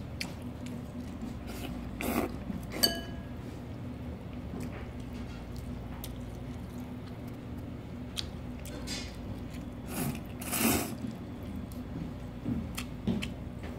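A person eating fresh buckwheat noodles: soft slurping and chewing, with a light clink of a utensil on the bowl about three seconds in and a louder slurp near the end, over a steady low room hum.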